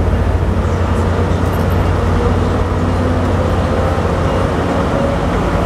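Diesel locomotive of a Tri-Rail commuter train running with a steady low engine drone, faint held tones above it.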